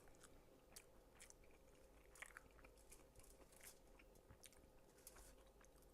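Faint chewing: scattered soft wet mouth clicks and smacks of someone eating a barbecue pulled-pork sandwich.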